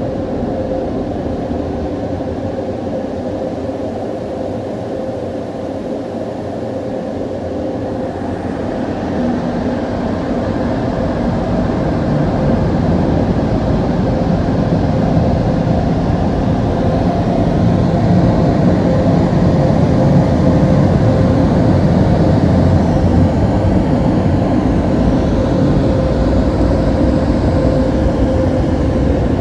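The onboard dryer blowers of a WashWorld RAZOR touch-free car wash running, heard from inside the car: a steady rush of air with a constant whine in it, growing louder over the first half and then holding.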